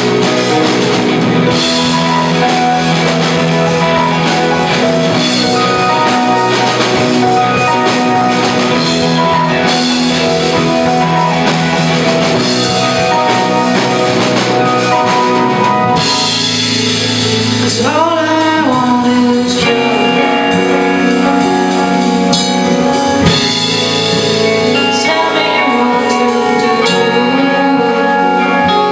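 A song with a band playing: drum kit and guitar with a singing voice, loud and steady throughout.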